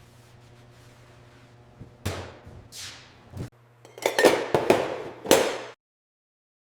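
A series of sharp knocks and clatters over a low steady hum, bunching together in the second half and then cutting off suddenly.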